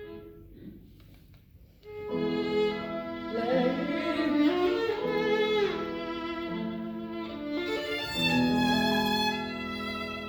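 Solo violin playing a slow, singing phrase of sustained notes with gliding slides between some of them, starting about two seconds in after a quiet start.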